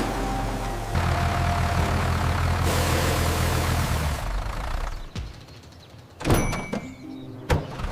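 Tractor engine running steadily, then dropping away about five seconds in, followed by a sharp metallic clank with a short ring and a lighter click: the seeder being hitched to the tractor.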